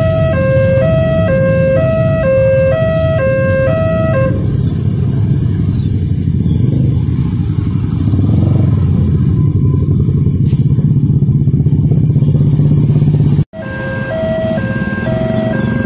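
Electronic railway level-crossing alarm alternating between two notes, stopping about four seconds in as the barrier lifts. Motorcycle and car engines of the traffic crossing the tracks follow. After a sudden cut near the end, the two-note crossing alarm sounds again.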